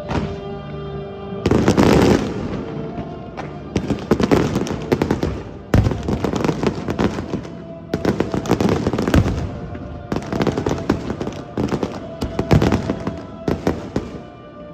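Aerial fireworks bursting one after another, each burst a sharp bang followed by crackling, over steady background music.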